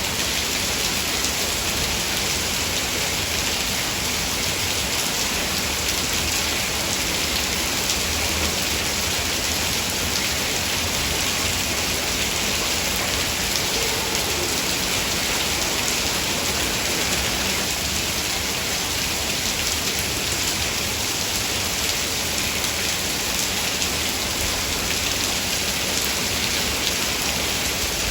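Heavy rain falling steadily, an even hiss of drops with faint scattered patters and no let-up.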